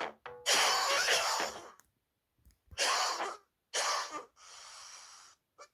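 Edited cough and breath samples played back on a PO-35 Speak pocket synth: a long harsh cough-like burst, then two shorter coughs and a quieter held breathy hiss, with small clicks between them.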